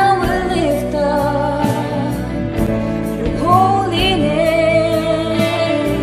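Christian worship song: a sung melody held in long, wavering notes over band accompaniment with a steady beat.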